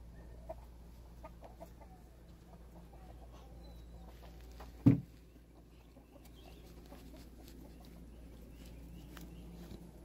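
Domestic hens clucking softly a few times, with one brief loud thump about halfway through.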